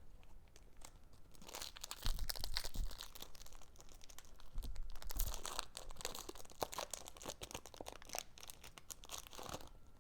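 Foil wrapper of a Pokémon TCG Fusion Strike booster pack crinkling and tearing as it is opened, a dense run of crackles starting about a second and a half in and stopping just before the end.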